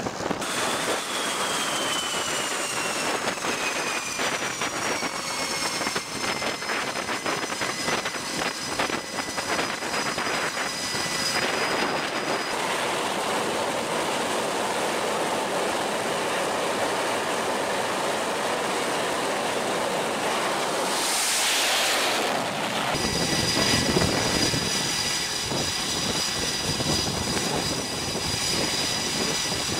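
Aircraft turbine engines on a carrier flight deck. Over the first ten seconds or so a high whine falls in pitch. About 21 seconds in there is a brief loud rush, and after an abrupt change a steady high jet whine runs, as an F/A-18F Super Hornet is marshalled across the deck.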